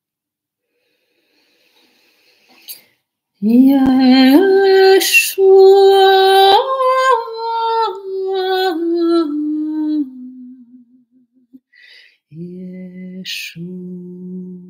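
A woman singing slow, long-held notes that step from pitch to pitch, starting about three seconds in after silence and falling lower toward the middle. Near the end she comes back more softly, humming low held notes.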